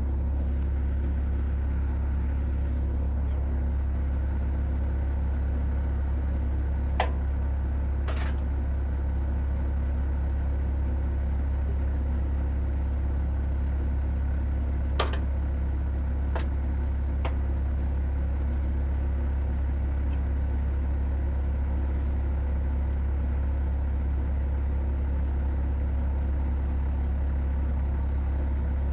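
A steady low rumble like an engine running, unchanging throughout, with a few sharp clicks and knocks about a third and halfway in.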